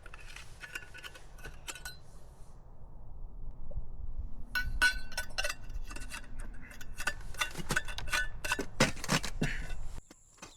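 Cooking pots and utensils clinking and knocking as camp cookware is handled, a few light clicks at first, then a busy run of clinks in the second half.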